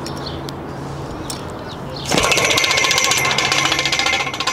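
Steady background hum, then about two seconds in a loud, rapid mechanical hammering from a power tool starts suddenly and keeps going.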